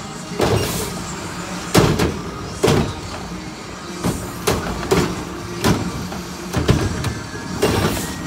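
Front-loading garbage truck's Curotto-Can cart arm grabbing, tipping and setting down plastic wheeled carts. Sharp bangs of carts and lids come about once a second over the steady running of the truck's engine and hydraulics.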